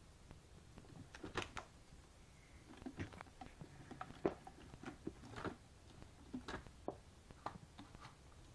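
Kittens scampering and play-fighting: faint, scattered taps, scratches and rustles from paws and claws on a sisal scratching post, plastic wrap and a wooden floor.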